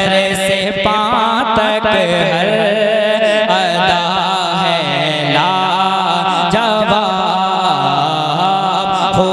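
A naat sung by a solo male voice, its melody bending and ornamented, over a steady held drone.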